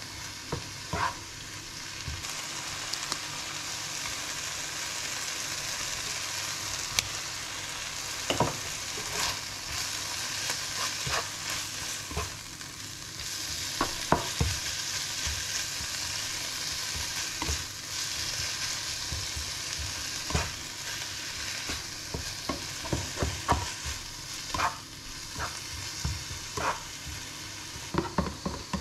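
Chopped spinach sizzling in a frying pan as a spatula stirs it, with scattered knocks and scrapes of the spatula against the pan. Near the end the sizzle eases and the knocks come more often.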